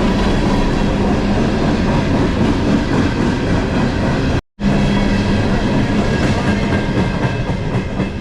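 A train rolling past on the main line, a loud steady rumble with a low hum running under it. The sound cuts out completely for a split second about halfway.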